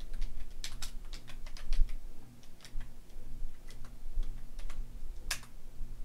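Typing on a computer keyboard: a run of irregular key clicks over a faint low hum.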